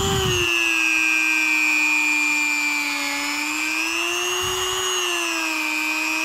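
Dremel rotary tool spinning a fine 320-grit buffing pad inside an aluminium cylinder head's exhaust port: a steady high-pitched motor whine whose pitch wavers a little as the pad works the port. This is the final power-tool polishing stage of porting the head.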